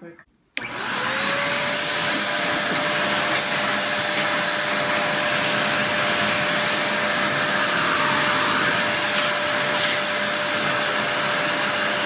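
Simplicity Synergy upright vacuum switched on with a click about half a second in. Its motor spins up with a rising whine over about a second, then runs steadily and loud. Its hose suction is being tried, which the owner finds weak.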